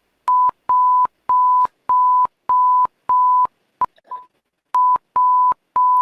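French emergency alert tone: a train of steady beeps at one unchanging pitch, about a third of a second each and about one and a half a second, with the first beep short and a pause of about a second midway. It sounds like Morse code, just beeps.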